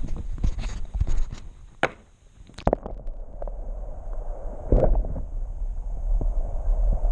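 Knocks and rubbing from a handheld action camera in air, then about two and a half seconds in the sound turns muffled and dull as the camera goes under water: a low underwater rumble with one heavy thud near the five-second mark.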